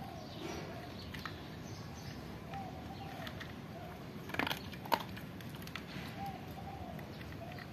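A dog eating rice and fish from a plastic plate: chewing and mouthing the food, with scattered clicks of teeth and jaws, two sharper ones about four and a half and five seconds in.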